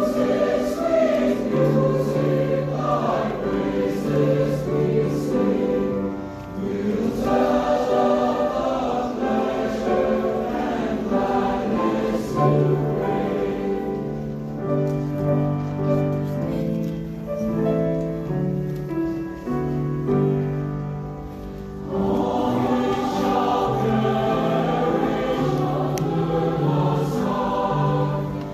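A high school choir singing a choral piece in several held parts, getting softer for a few seconds past the middle and then swelling back to full volume.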